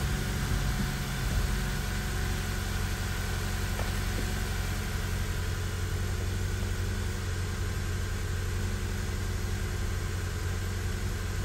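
A 2013 Honda Accord's four-cylinder engine idling steadily, heard from inside the cabin.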